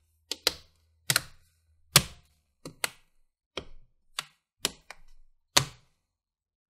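Plastic bottom cover of an HP Pavilion x360 14 laptop snapping into place: about a dozen sharp clicks, irregularly spaced, as its clips catch while the edges and corners are pressed down.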